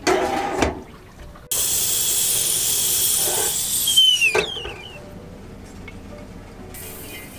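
Stovetop whistling kettle on a gas burner whistling at the boil over a loud rush of steam. About four seconds in the whistle slides down in pitch and dies away as the kettle is lifted off the heat.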